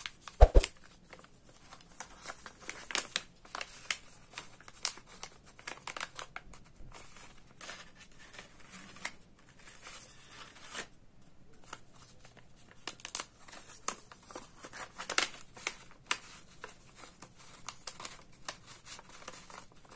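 Paper rustling and crinkling in short, scattered strokes as folded paper envelopes are handled and banknotes are slid into them, with one loud thump about half a second in.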